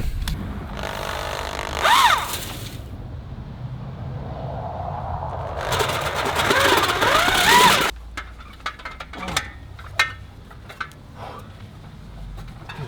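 A motor running steadily for about eight seconds, twice rising into a loud, harsh grinding noise with rising and falling pitch. It cuts off suddenly, and light sharp taps and clicks follow.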